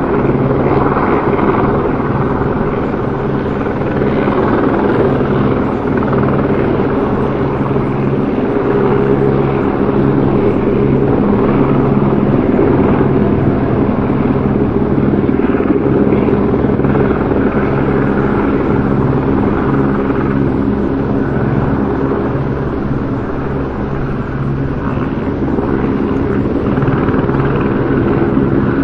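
Helicopter running steadily, its rotor and engine giving a continuous drone of several steady low tones over a rushing noise.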